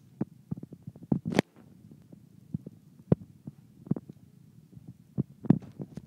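A parrot's beak working a hanging wooden cage toy: irregular clicks and knocks of beak on wood, the loudest near the end.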